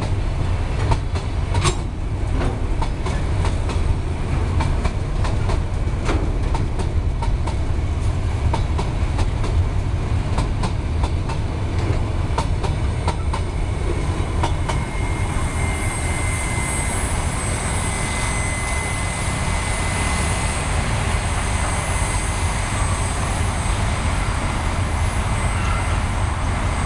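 Freight train of covered boxcars passing close by, its wheels clicking rapidly over the rail joints above a heavy rumble. About halfway through, the last wagon passes and the clicking fades. The receding train leaves a steady rumble with a thin, high, steady ringing tone.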